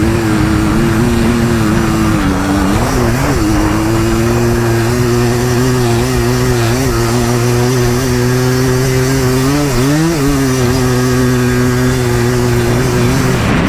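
ATV engine running at steady revs while riding up a hill path, the pitch dipping and picking back up briefly about three seconds in and again about ten seconds in.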